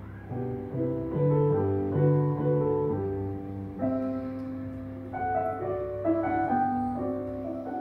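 Grand piano played solo: classical music in sustained chords and melody notes that change about every half second.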